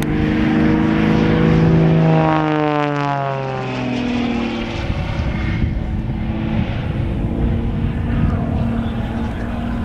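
Aerobatic propeller plane's piston engine running hard in a pass. Its pitch falls steeply about two to four seconds in, then holds a lower, steady note.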